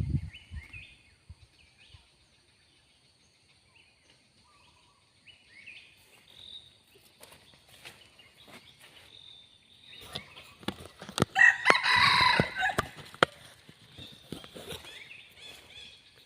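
Red junglefowl rooster crowing loudly about 11 to 13 seconds in, among sharp knocks and rustles; faint short bird chirps before it.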